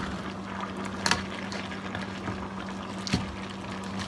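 Crab and vegetables in coconut milk simmering and bubbling in a wok, over a steady low hum. A wooden spatula moving the crabs knocks against the pan twice, about a second in and about three seconds in.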